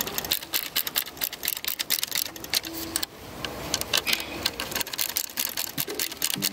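Ratcheting screwdriver clicking in quick, uneven runs as a small screw is driven into a metal bracket.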